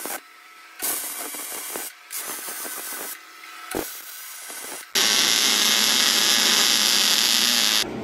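Arc welding on a steel pedal bracket, short weld runs that crackle and sizzle for about a second each with brief pauses between them, then a louder, steady hiss for about three seconds near the end that stops abruptly.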